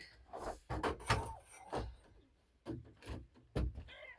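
Irregular knocks and rubbing of wooden door framing being handled and fitted, several sharp knocks spaced unevenly.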